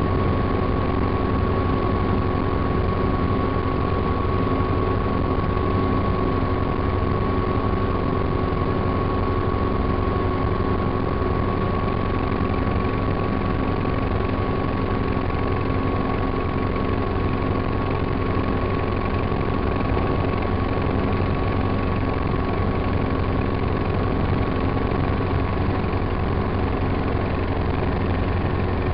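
Helicopter in flight heard from inside the cabin: a steady, unbroken drone of engine and rotor, with a thin steady whine above it.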